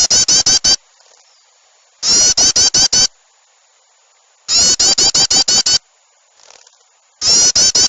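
Bird-lure playback of small birds' rapid, harsh alarm chatter: loud bursts of five or six quick notes, repeating about every two and a half seconds in identical looped phrases, meant to draw small birds in.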